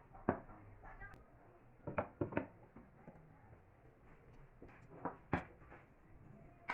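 A few light knocks and clicks, one near the start, a quick cluster of three about two seconds in and two more about five seconds in, over a faint steady background.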